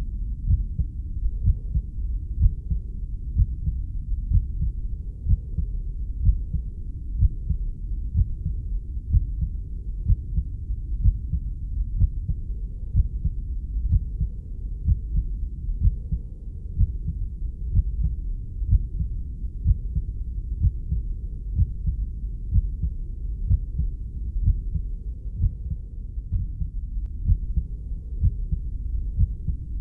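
A heartbeat beating slowly and evenly, as dull low thumps about once a second over a constant low rumble, the sound of a heartbeat heard from inside the womb.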